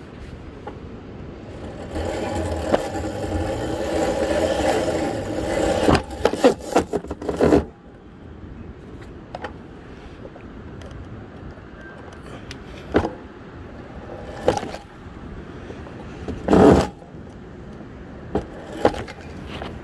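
A Razor e-bike being taken up wooden stairs. A steady whine runs for about four seconds, then comes a quick run of knocks and scrapes on the wooden steps. After that there are a few separate knocks, the loudest near the end.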